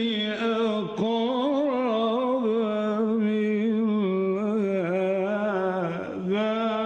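Male Qur'anic recitation in the melodic Egyptian style: one voice drawing out long, ornamented held notes with wavering pitch, with a short break for breath near the end.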